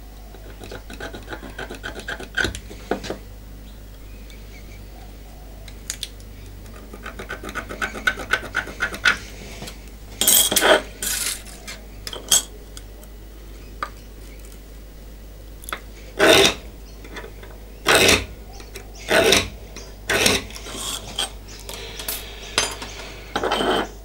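Hand scriber scratching marking-out lines into a 6 mm metal plate against a small square. Light quick scratching at first, then a run of short scraping strokes of about half a second each, one every second or two, with small clicks and clinks of the tools between them.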